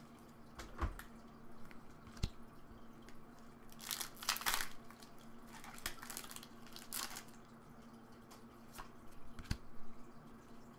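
Foil booster-pack wrapper of a Pokémon trading card pack crinkling and being torn open in several short crackly bursts between about four and seven seconds in, with a few light taps as the pack and cards are handled.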